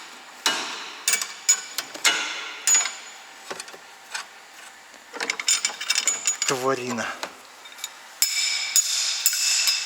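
Metal hand tools working on a seized stabilizer link nut: a series of sharp metallic clicks and knocks, then a longer grating, scraping sound near the end.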